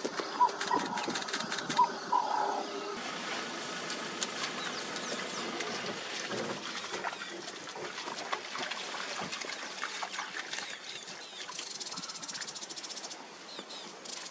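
Outdoor bush ambience with short, repeated bird chirps in the first three seconds. About three seconds in it changes to a steadier background of faint chirps and ticks.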